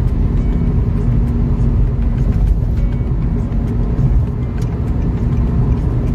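Car driving along a road, heard from inside the cabin: a loud, steady mix of engine and tyre noise, heavy in the lows.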